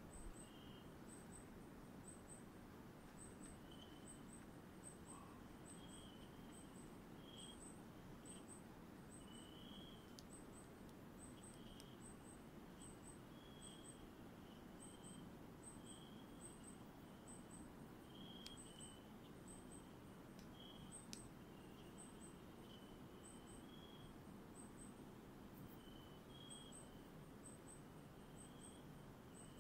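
Faint night-time insect chorus in cloud forest: a high double chirp repeats steadily about twice a second, while lower chirps come and go, over a low background hiss. A few light ticks break in near the middle.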